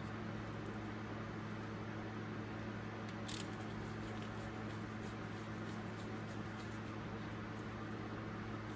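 Steady low electrical hum with faint scattered ticks and one brief sharp click about three seconds in, light handling of small metal tools.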